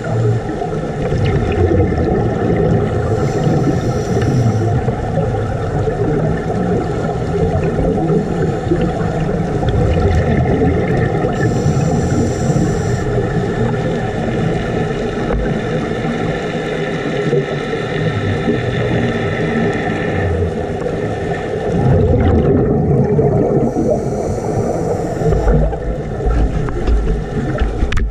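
Muffled underwater sound of scuba divers breathing through their regulators: a continuous rumble and gurgle of exhaled bubbles, with a short high hiss three times.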